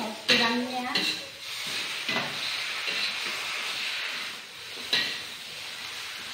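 Bean sprouts stir-frying in a hot wok with a steady sizzle, as a metal spatula scrapes and knocks against the wok about four times.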